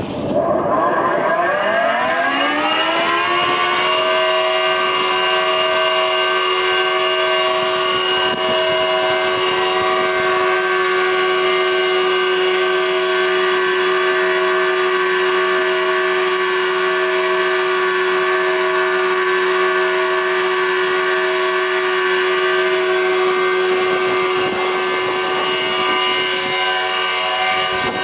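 Robland D630 thickness planer starting up: the motor and cutterhead spin up with a rising whine over about four seconds, then run at full speed with a steady whine.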